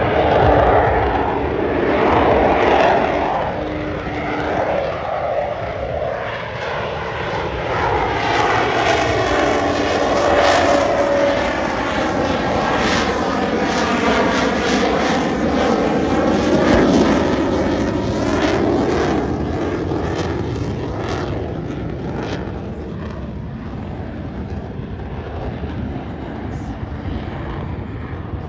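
Aircraft engine noise from a plane passing overhead, loud and steady, with a sweeping, phasing sound in the middle as it goes by.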